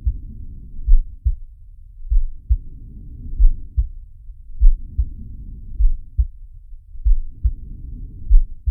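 Slow heartbeat sound effect for a cartoon shark: each beat is a double thump, coming about once every 1.2 s. Under it a soft breathing sound swells and fades about every two seconds.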